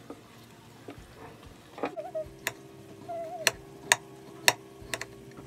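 Kitchen knife slicing through an onion onto a plate, a sharp tap at each stroke: about six taps roughly half a second apart, starting a little before halfway.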